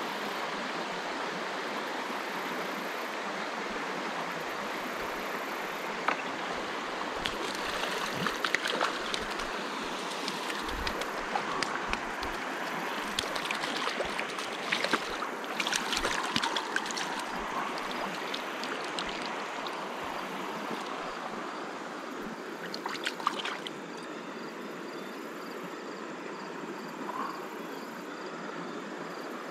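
Shallow creek water rushing steadily over a riffle, with scattered short clicks and knocks in the middle stretch and once more later on.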